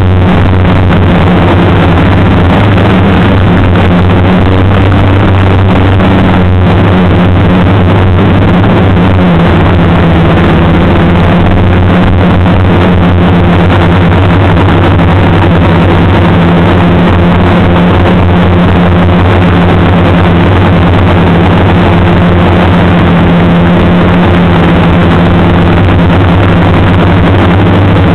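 The FPV drone's Turnigy 2213N brushless motors and propellers drone loudly and steadily in flight, with small shifts in pitch.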